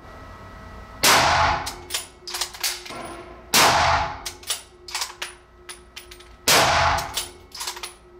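Three shots from a muzzle-braked Browning X-Bolt rifle in .30-06 Springfield, about a second, three and a half and six and a half seconds in. Each is a loud crack that rings on in the enclosed range, with smaller sharp clicks between the shots.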